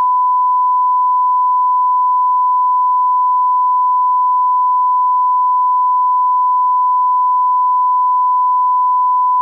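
Steady 1 kHz line-up test tone, a single unbroken pure pitch at constant loudness, the reference tone that goes with colour bars at the head of a programme.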